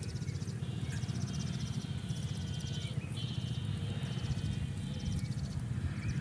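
Insects chirping in repeated short trills of rapid pulses, with a steadier high buzz joining in, over a constant low rumble.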